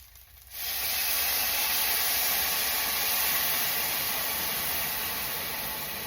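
Chicken broth poured into a hot pot of fried rice and tomato, hissing loudly as the liquid hits the hot oil and turns to steam. It starts suddenly about half a second in and slowly dies down.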